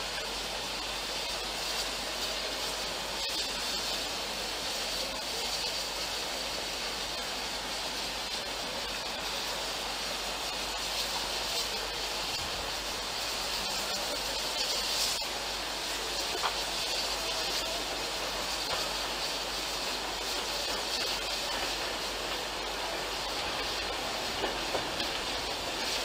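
A passenger train approaching and running in along the station lines, its sound growing slowly louder toward the end, under a steady hiss of strong wind on the microphone.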